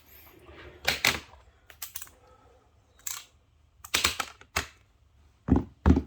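Irregular clicks and clacks from an AULA F3068 mechanical keyboard being handled, coming in small clusters, with a soft rustle in the first second.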